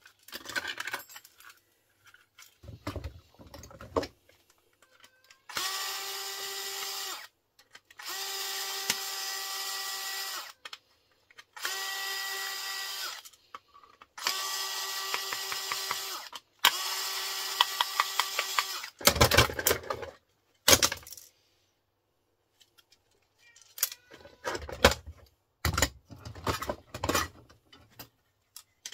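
A hand-held electric drill runs at a steady speed in five bursts of about two seconds each, drilling into a plastic electrical fitting. Scattered clicks and knocks of plastic parts being handled come before and after the drilling.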